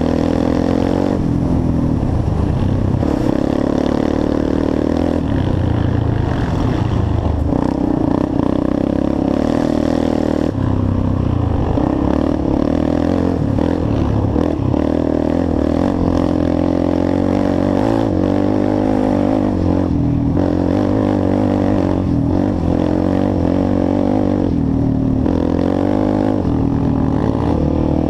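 Sport quad (ATV) engine running under way, its revs rising and falling repeatedly as the throttle is opened and closed.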